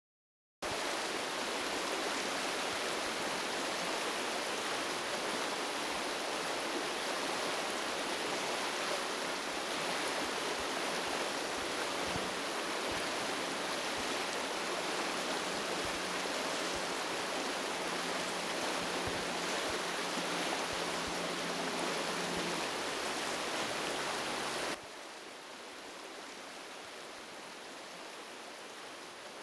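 A steady rushing noise, even and without rhythm, that starts abruptly just after the silence and drops suddenly to a quieter level about 25 seconds in.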